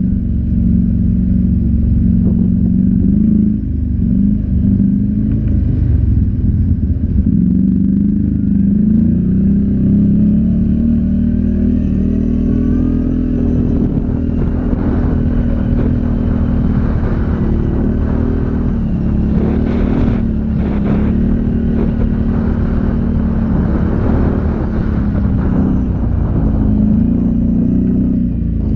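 ATV engine running under way, its note rising and falling a little with the throttle, over a steady low rumble.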